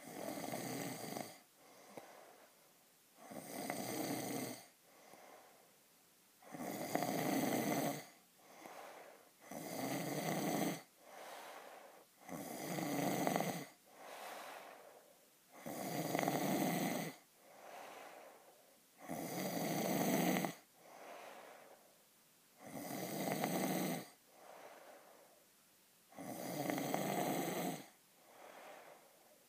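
A man snoring in his sleep. A loud snore comes about every three seconds and lasts a second or more, with a much quieter breath between each pair of snores.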